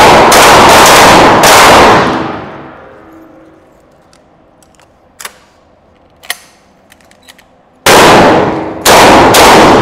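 12-gauge shotgun blasts in an echoing indoor range: a rapid run of about four shots at the start, each with a long ringing tail. A few light clicks and clacks of shells being reloaded follow, then three more shots near the end.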